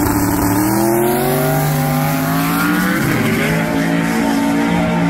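Twin-turbo V8 of an all-wheel-drive F-150 drag truck accelerating hard off the line. The pitch climbs steadily, drops at a gear change about three seconds in, then climbs again.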